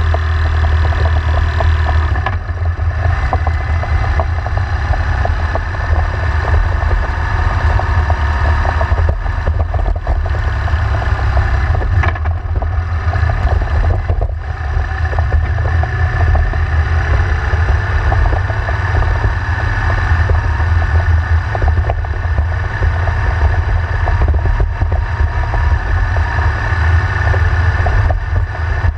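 Motorcycle engine running steadily at road speed as a continuous low drone, heard from on the bike with road and wind noise.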